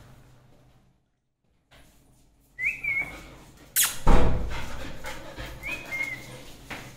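Golden retriever puppy giving two short, high whines about three seconds apart, with a loud thump of handling between them.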